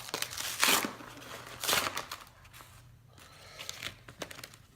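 Packaging being unwrapped by hand: crinkling and crushing, with two louder crinkles about half a second and nearly two seconds in, then quieter rustling and small clicks.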